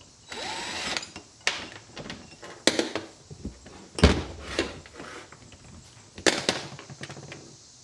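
Steel wrench and socket clanking on a hydraulic cylinder's tie-rod nuts: a short scrape, then a series of sharp metal clinks and knocks, the loudest a heavier thud about four seconds in.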